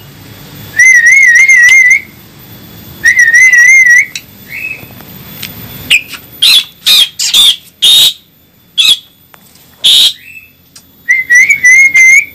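Asian pied starlings (jalak suren) calling: loud wavering whistled notes about a second long, three times, and in between a run of short, harsh, loud call notes.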